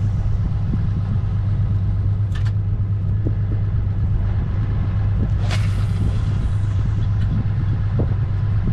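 A boat's outboard motor running steadily with a constant low hum. A few brief sharp sounds sit over it, the loudest about five and a half seconds in.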